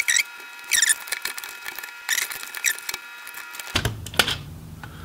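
Laptop display hinge squeaking as the screen is worked back and forth: a handful of short squeaks that bend up and down in pitch. About three and a half seconds in, the sound gives way to a low hum with a few clicks.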